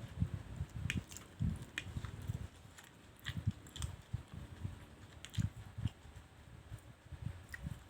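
Close-miked chewing of mie goreng fried noodles: irregular soft, low mouth thuds several times a second, with an occasional short, sharp wet click.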